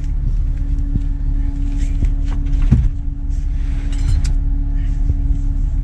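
Car engine and road noise running steadily as a low rumble with a constant hum, with a few faint clicks.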